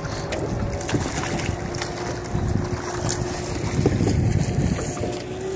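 Wind buffeting the microphone over water splashing and lapping beside a small aluminum boat, with a steady motorboat engine hum underneath. The wind rumble is strongest about four seconds in.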